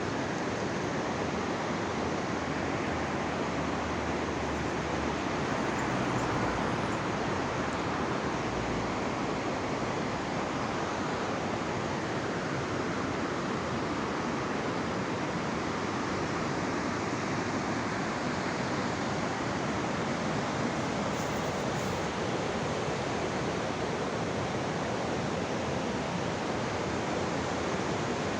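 Steady, unbroken rush of fast-flowing mountain river water.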